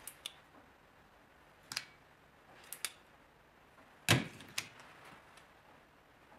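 Telescopic steel drawer slides being handled: a few light metallic clicks, then a louder metal-on-metal knock with a short ring about four seconds in as a slide is laid down on top of the others.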